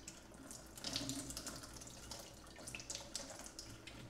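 Water being poured into a glass jar: a faint, uneven trickle and splash.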